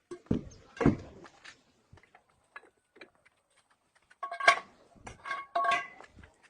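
Metal knocks and clanks, as of tools and parts being handled: two dull thumps near the start, a few light clicks, then sharp metallic clanks that ring briefly, about four and a half and five and a half seconds in.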